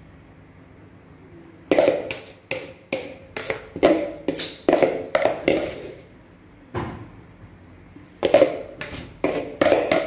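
Metal serving spoon clinking and tapping against crockery while salad is spooned and arranged, in two runs of quick, ringing knocks with a pause between.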